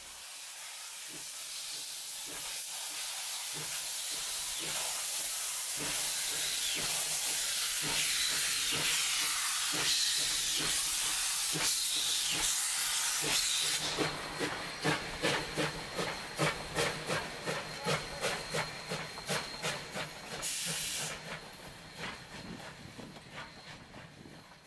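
LMS Stanier Class 5 4-6-0 steam locomotive No 44932 pulling away: a loud hiss of steam that builds and then dies down about halfway, under exhaust chuffs that quicken from slow single beats to about two a second. A short burst of hiss comes near the end, and the chuffs fade as it draws away.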